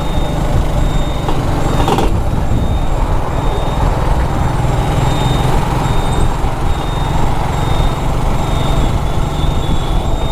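Steady drone of a motorcycle being ridden through city traffic: engine and road noise, with a short click about two seconds in.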